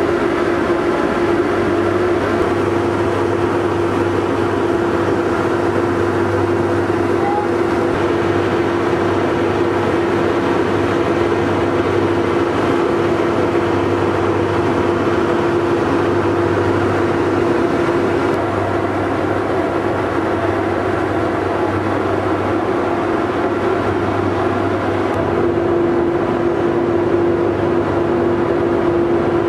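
Boat engine running steadily: a loud, unchanging hum with a constant tone.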